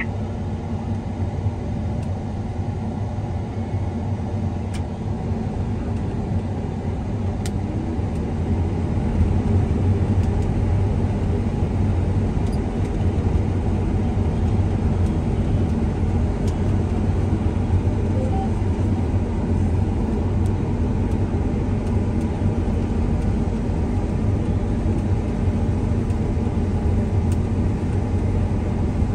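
John Deere combine running while cutting wheat, heard from inside the cab: a steady low machine drone that grows louder and deeper about nine seconds in.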